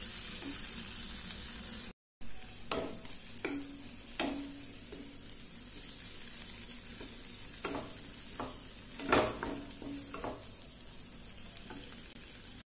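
Ginger paste and tomato masala sizzling in hot oil in a kadai while a wooden spatula stirs and scrapes through it, with scattered knocks of the spatula against the pan. The loudest knock comes about nine seconds in, and the sound drops out briefly about two seconds in.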